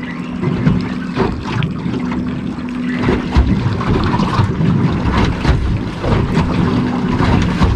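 Wind buffeting the microphone and water slapping against the hull of a small boat at sea, with scattered knocks. A low steady hum drops out about three seconds in and comes back near the end.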